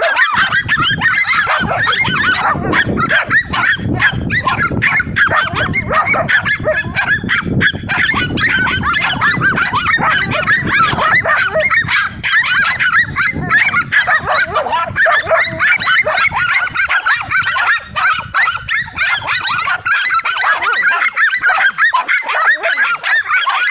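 A pack of dogs barking and yapping at once, the barks overlapping without a break, as they hold a large lizard at bay.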